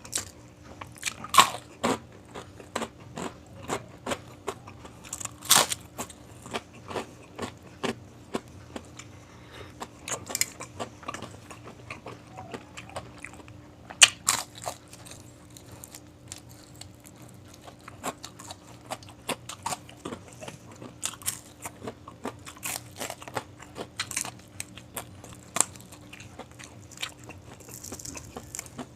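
Close-up crunching and chewing of crispy fried food: sharp, irregular bites and crackles, the loudest about a second and a half, five and a half, and fourteen seconds in.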